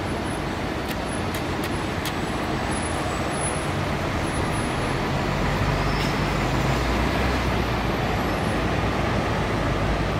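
Road traffic noise with a heavy vehicle's engine running, its low hum growing a little louder about halfway through.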